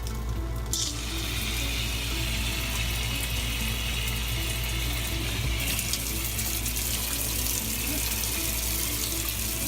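Water spraying from a newly fitted Oxygenics Body Spa shower head, fed by a 12-volt RV water pump; the spray starts about a second in and grows brighter a little past halfway.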